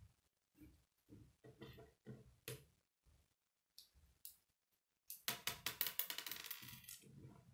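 Small plastic Lego bricks clicking and rubbing as they are handled and fitted together, then about five seconds in a quick rattle of loose pieces clattering onto a wooden tabletop, the loudest part.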